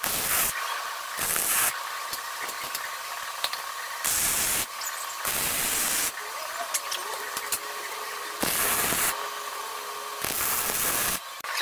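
MIG welder arc crackling as short welds are laid on steel, in about six bursts of half a second to a second each, with a steady hiss between them.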